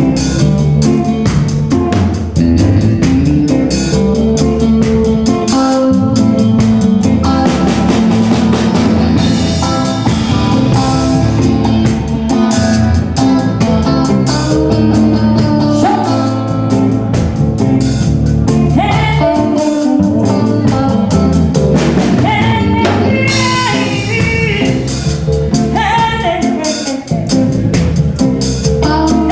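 Live band playing a ragga song with drum kit, bass and guitar, a steady beat throughout; a voice comes in singing over it about two-thirds of the way through.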